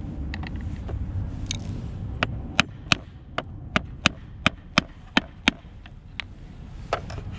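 A run of about ten sharp clicks, roughly three a second in the middle stretch, with a few fainter ones before and after, made by hand work on a Tesla Model 3's door-handle mechanism inside the opened door. A low steady rumble lies underneath.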